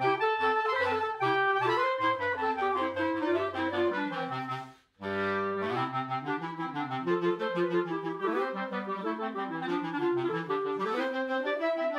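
Clarinet quartet of three clarinets and a bass clarinet playing a sea-shanty-based tune in harmony. All four parts cut off together just before five seconds in for a brief rest, then come back in.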